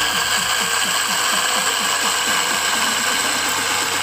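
Osterizer 10-speed blender running, grinding peanuts into a coarse meal: a steady high motor whine over a fast, even churning of the nuts in the jar.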